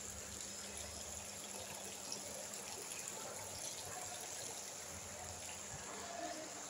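Steady faint hiss of a building lobby's background noise, with a low hum underneath.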